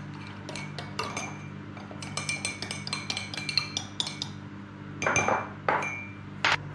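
A teaspoon stirring cornflour into water in a ceramic mug, clinking against the sides in quick runs, with a few louder knocks near the end. It is mixing a cornflour slurry to thicken gravy.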